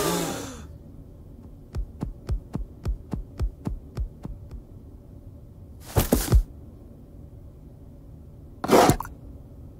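Cartoon sound effects: a run of quick, light footsteps on a wooden floor, about four a second for roughly three seconds. About halfway through comes a short cluster of louder thumps, and another short thud near the end.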